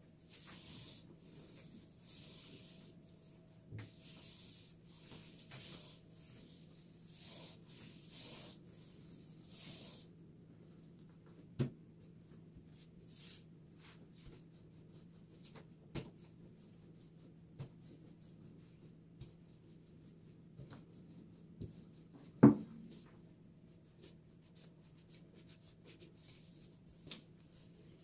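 About ten short rubbing or brushing strokes, one after another, then a few scattered light clicks and one sharper knock a little past the middle, over a faint steady low hum.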